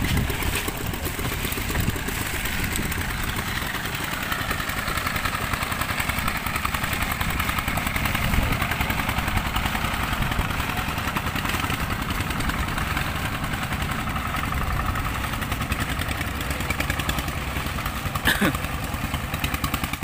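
Boat engine running steadily with an even, rapid throb, and a short clack about eighteen seconds in.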